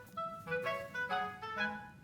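Bouncy background music: a light melody of short notes in a clarinet-like woodwind timbre.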